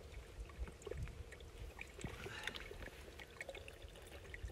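Faint small clicks and crinkles of a Sawyer Squeeze soft water pouch and filter being handled, with a faint trickle of water, over a low wind rumble.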